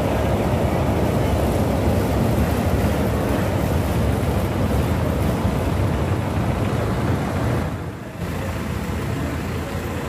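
Street traffic noise: motor vehicles running close by in a steady, dense rumble, with a short dip about eight seconds in.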